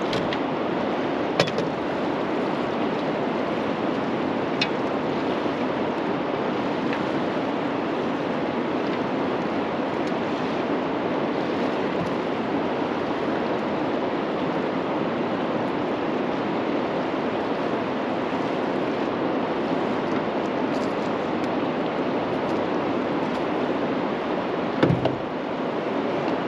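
Steady rush of fast-moving river water in the current below a lock and dam, even and unbroken. A few light clicks come early on and a louder knock near the end.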